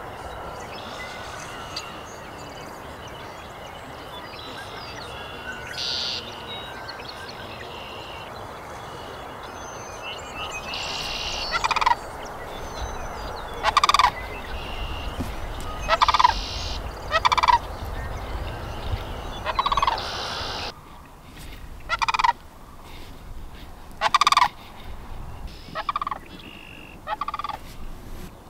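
Sandhill cranes calling: loud, rolling, rattling calls, one every second or two, beginning about twelve seconds in, over a steady background chorus of birdsong.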